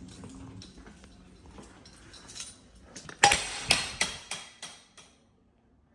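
A loud metallic clank followed by about five more knocks, each fainter, roughly three a second, dying away after a couple of seconds.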